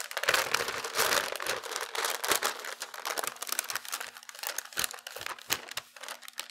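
Parchment paper crinkling and rustling as it is handled, flipped over a pie dish and peeled back from a rolled-out pie crust, with dense crackling for the first couple of seconds and sparser crackles after.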